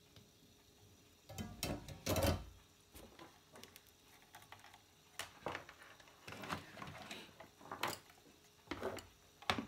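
Handling noise on a wooden workbench: loose wires and small objects being moved about, giving a series of irregular knocks and clatters, loudest about two seconds in.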